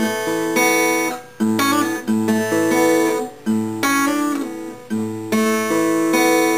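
Steel-string acoustic guitar played with the fingers, strumming the intro's chords with hammered-on notes. The chords are cut short and struck again about once a second, with brief gaps between them.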